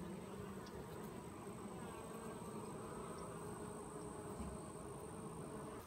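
Honey bees buzzing in a steady, low hum around an opened hive's brood frame crowded with bees.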